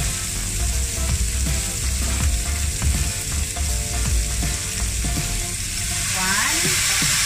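Pork belly chunks, onion and garlic sizzling in a hot pot as soy sauce is poured in.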